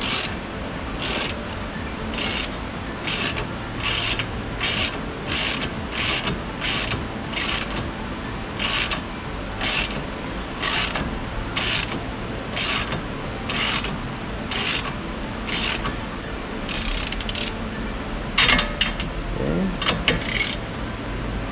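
Socket ratchet wrench clicking in repeated back-strokes, about one a second, as it tightens the nut on an anti-roll bar link, with a few louder strokes near the end.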